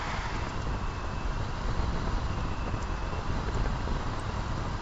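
Volkswagen Taigo small petrol SUV driving by on the road: a steady rush of tyre and road noise with a low engine hum.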